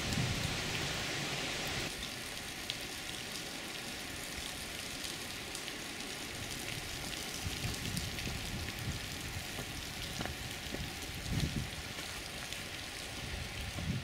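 Steady rain-like patter of water dripping, with many small separate drip clicks, from melting snow in sunshine. A couple of low thumps come near the end.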